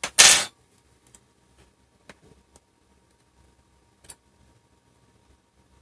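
Handling noise during a laptop screen repair: a short, loud rustling burst just after the start, then a few faint, light plastic clicks and taps spread through the rest.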